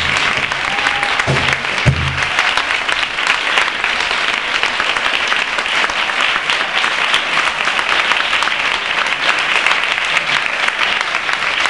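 Audience applauding steadily. There are two low thuds in the first two seconds.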